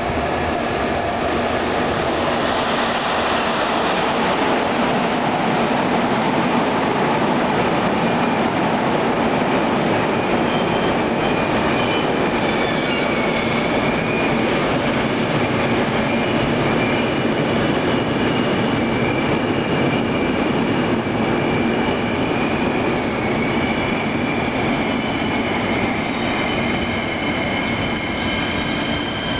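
Passenger train rolling along the track, heard from on board: a steady rumble of the wheels and running gear, with a thin high-pitched wheel squeal joining in from about twelve seconds and fading near the end.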